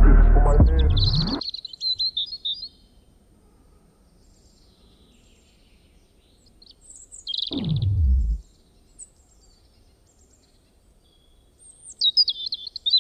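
Small birds chirping and twittering in short scattered phrases, as music fades out in the first second and a half. About seven and a half seconds in, one deep sweep falls from high to very low in about a second.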